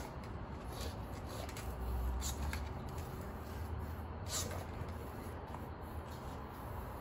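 Wind blowing in through an open balcony door, a low steady rumble that swells about two seconds in. A few short sniffs from a pug nosing at the door threshold.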